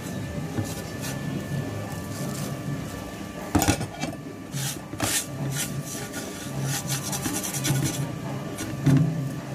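A thin metal utensil stirring and scraping semolina and water in a plastic microwave bowl, in repeated rubbing strokes with a sharp knock about a third of the way in. The semolina is being mixed steadily so that no lumps form.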